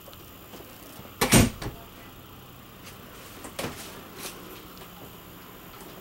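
Knocks and bumps: a quick cluster of knocks a little over a second in, the loudest sound here, then two lighter knocks around three and a half and four seconds in.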